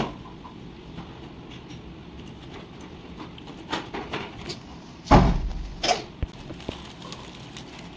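Metal spoon scraping and tapping as sauce is spread over slices of toasted bread on a plate: a few light clicks, then a louder dull knock about five seconds in and another sharp click just after.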